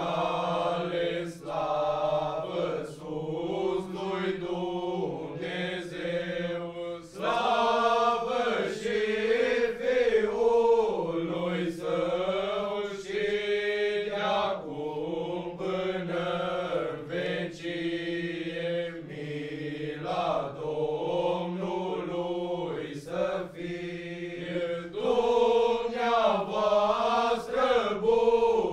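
A group of young men singing a traditional Romanian Christmas carol (colindă) together, unaccompanied, in continuous phrases over a held low note.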